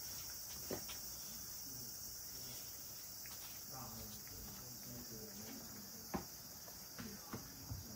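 Cat eating from a ceramic bowl: a few soft sharp clicks of chewing and bowl contact, over a steady high hiss.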